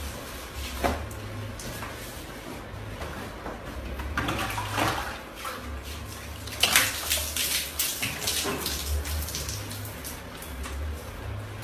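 Water poured from a bowl over a person's head and body, splashing in several bursts, the loudest a little past halfway.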